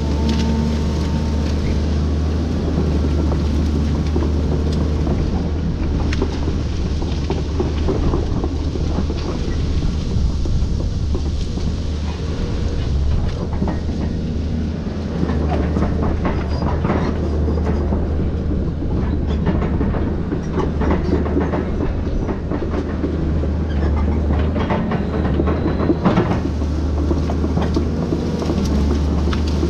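Volvo excavator's diesel engine running steadily with a deep drone, overlaid with frequent irregular knocks and clatter as it rakes up citrus trees.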